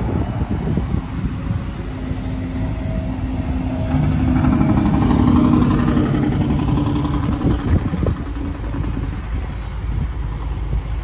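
A motor vehicle's engine running over a steady low rumble, swelling to its loudest about halfway through and then fading.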